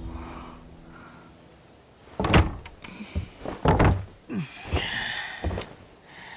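Heavy wooden hall doors pushed open: a loud clunk about two seconds in, a second knock a little over a second later, then lighter knocks and a short creak.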